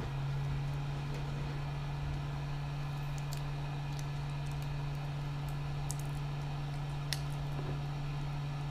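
Steady low hum of a hot air rework gun lying on the bench, its fan still running after the blowing stops, with a few faint clicks from small parts being handled.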